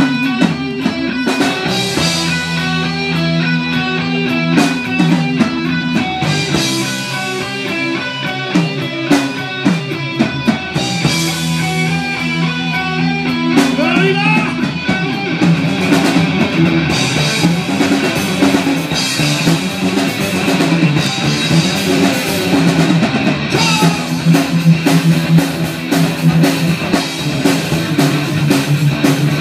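Live rock band playing through a PA system: guitars over a drum kit. The playing gets denser, with more drums and cymbals, about halfway through.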